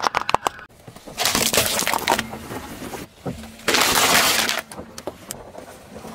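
A car tyre rolling over small brittle objects and crushing them. Several sharp cracks come first, then two loud stretches of crunching and breaking, about a second in and about four seconds in.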